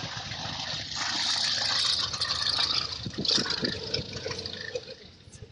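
A low-flying aircraft passing overhead: a broad rushing noise that swells over the first couple of seconds and fades away near the end.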